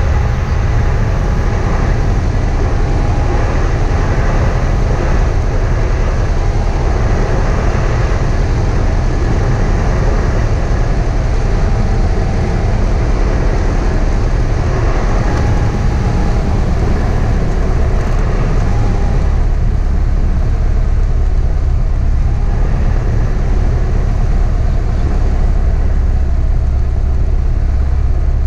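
Cabin noise of a light single-engine high-wing airplane: the piston engine and propeller drone steadily under a broad wind hiss, heard from inside the cockpit during the descent to land. The higher hiss eases slightly about two-thirds of the way in.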